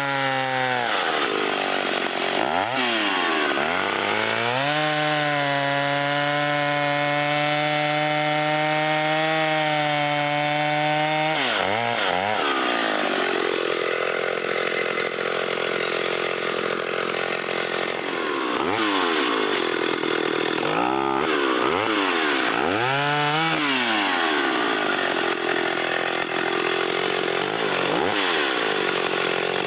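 Stihl 031 two-stroke chainsaw running at high revs and cutting wood. The engine pitch holds steady for a stretch, then dips and climbs back several times as the saw is eased off and throttled up again through the cut.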